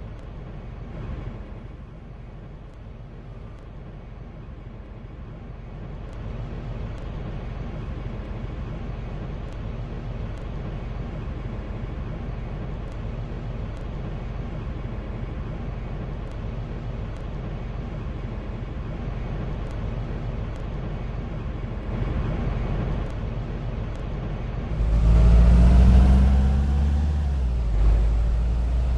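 Road traffic: a vehicle engine running steadily and slowly growing louder. Near the end a heavier vehicle accelerates loudly close by, its pitch rising.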